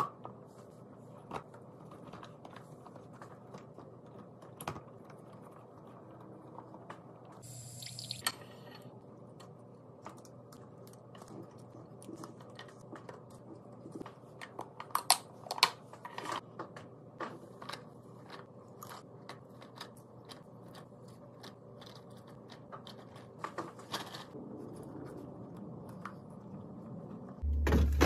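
Containers and food packages being handled and set down while restocking a fridge: scattered light clicks, taps and crinkles, with a short hiss about eight seconds in. A loud low hum starts near the end.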